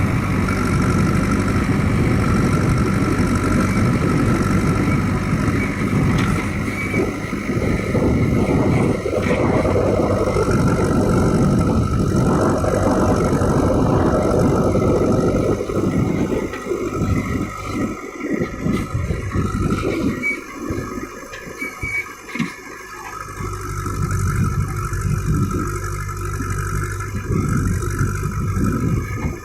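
JCB backhoe loader's diesel engine running steadily as it digs. The engine sound drops and turns uneven for several seconds past the middle, then picks back up to its steady note.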